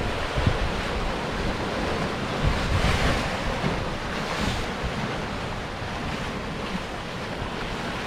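Sea surf washing against rocks, a continuous rush of water with wind buffeting the microphone; a wave surges in with a louder hiss about three seconds in.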